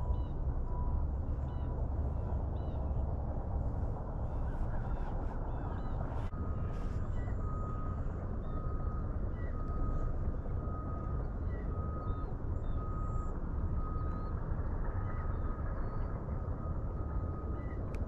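Outdoor ambience: a steady low rumble with faint bird chirps. Midway a run of about eight short, even beeps comes roughly once a second.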